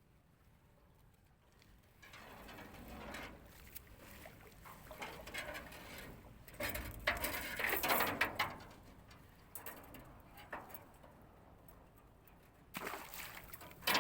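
Water splashing and sloshing with handling noise from a small fishing boat, in irregular bursts that are loudest about seven to eight seconds in, with a sharp knock near the end.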